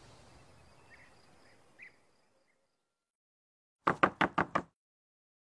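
Five quick, sharp knocks on a wooden gate, all within under a second. Before them, faint outdoor ambience with a few bird chirps fades out.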